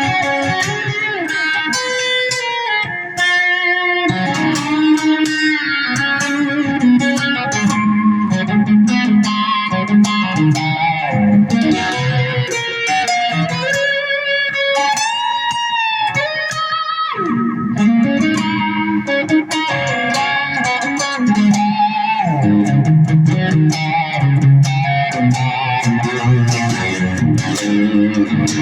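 Firefly FFST electric guitar with a Floyd Rose tremolo playing lead lines: a fast run of single picked notes, with pitch bends in places.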